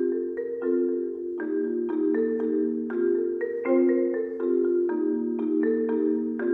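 Solo concert marimba played with four mallets: a flowing run of struck chords, about three or four strokes a second, each note ringing briefly before the next. It comes in louder right at the start and keeps an even pulse.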